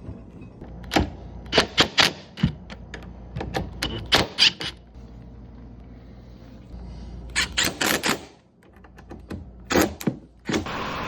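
Clusters of sharp clicks and knocks from hand tools and door handling while the refrigerator door hinges are loosened and tightened. A steady noise comes in near the end.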